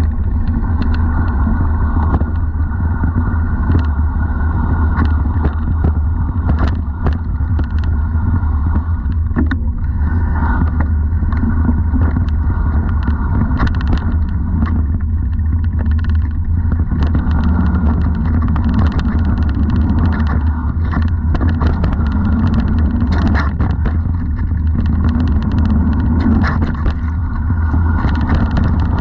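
Mountain bike ridden along a dirt singletrack: a steady low rumble of tyre and wind noise on the camera, with frequent sharp clicks and rattles as the bike rolls over dirt, leaves and bumps.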